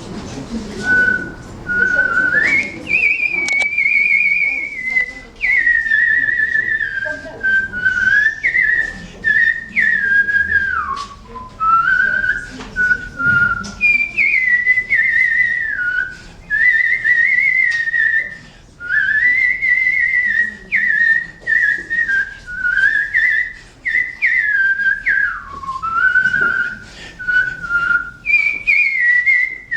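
A man whistles a song melody, one verse of it, in a clear, pure tone. The phrases move from note to note, with slides up and down between them.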